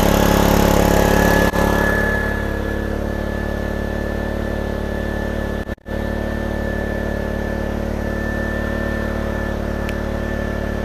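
Honda GCV160 single-cylinder pressure washer engine running steadily just after starting, its pump fed with water; a little louder for the first couple of seconds, then settling to an even run.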